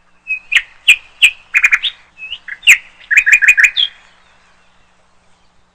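Small bird chirping: short, sharp chirps, first singly and then in quick runs of four or five, ending about four seconds in.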